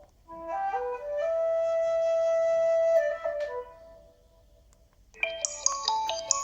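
Alcatel 3088 mobile phone playing one of its built-in ringtones: a short melody of a few rising notes into one long held note, which ends about halfway through. After a brief pause, a higher, quicker ringtone melody begins near the end.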